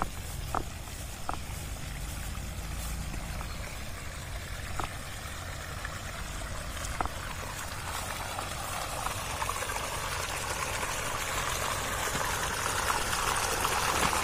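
Water gushing from two pump-fed irrigation pipe outlets into a flooded rice paddy, the splashing growing steadily louder over the second half. Earlier there is only a low rumble and a few faint short ticks.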